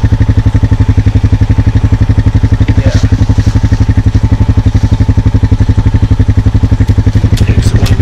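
A small engine idling steadily close by, a quick even pulse with no change in speed. Several sharp clicks come in near the end.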